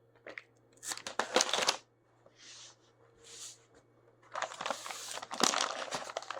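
Packaging crinkling and rustling as a parcel is handled and opened: a short crackly burst, two soft brushing sounds, then a longer stretch of crinkling near the end.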